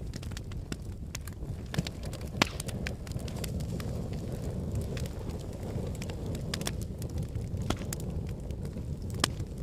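Fireplace fire crackling: scattered sharp pops and snaps over a steady low rumble, the loudest pop about two and a half seconds in.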